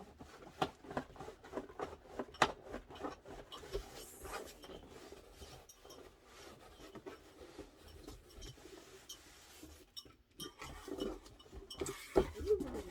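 Cardboard box and packing material rubbing, scraping and clicking as a heavy boxed machine is worked out of its box. The handling noises come thick at first, thin out in the middle and pick up again near the end.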